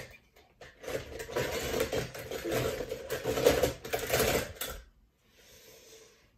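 Small die-cast toy cars clattering and rattling against each other and a plastic bowl as they are stirred by hand, a dense run of clicks for about four seconds that stops suddenly.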